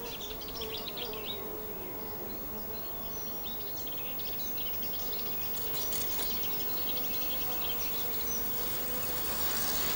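Outdoor ambience of a steady insect buzz with birds chirping over it; a soft rushing noise swells near the end.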